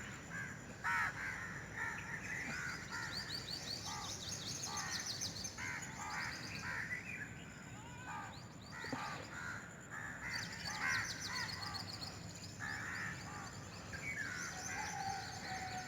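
Morning bird chorus: several birds calling over one another, with short repeated calls and spells of fast, high trilling.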